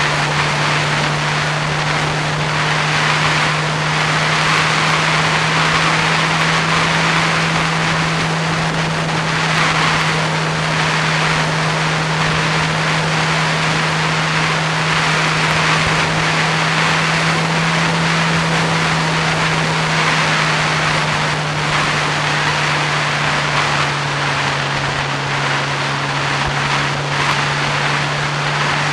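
A vehicle's engine held at steady cruising revs, giving a constant low drone that settles slightly lower near the end, under loud wind and road noise from riding along at speed.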